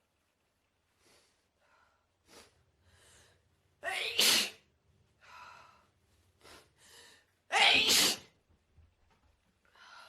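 A person with a heavy cold sneezing twice, about four seconds in and again near eight seconds, with short gasping in-breaths building up before each sneeze.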